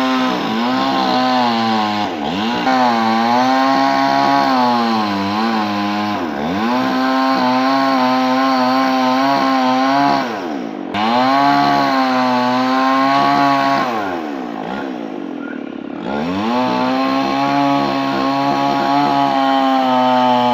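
Two-stroke chainsaw running at high revs, its pitch dropping sharply and recovering about four times, with a longer lower, quieter stretch about three quarters of the way through.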